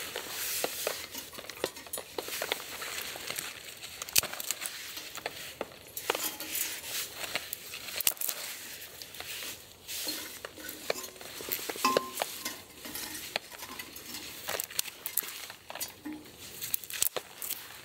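Dry twigs being snapped and fed into a Lixada folding metal wood stove: irregular sharp clicks and small snaps, with light clatter of sticks against the stove's metal walls.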